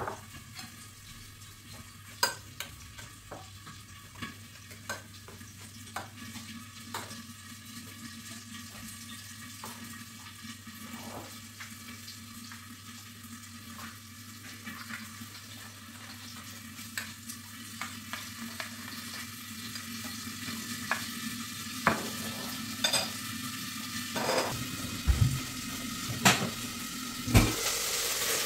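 A metal spoon stirring a liquid mixture in a ceramic bowl, clinking against the bowl's sides at irregular intervals, over a steady hiss. Louder knocks and clatter come in the last few seconds.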